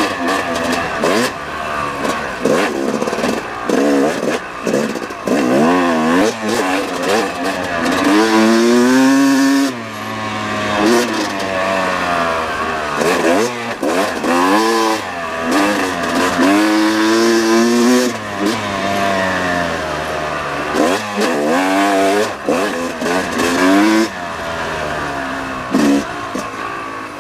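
Yamaha YZ250X single-cylinder two-stroke dirt bike engine revving up and down as the rider works the throttle along a trail. There are repeated rising pulls with longer ones about eight seconds in and again around sixteen to eighteen seconds, and the engine note drops off suddenly when the throttle is shut just before ten seconds.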